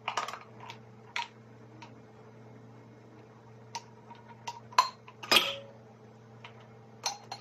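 Ice and the strainer clinking against a copper cocktail shaker tin as a shaken drink is strained into a coupe glass: a scatter of short, light clinks, the loudest pair about five seconds in.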